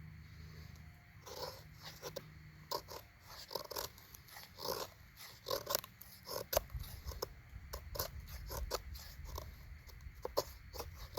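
Knife blade shaving curls off a stick of fatwood: a run of short, irregular scraping strokes.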